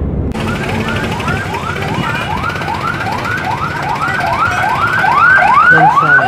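An electronic siren sounding in quick rising sweeps, about three a second, growing louder toward the end, over the noise of street traffic.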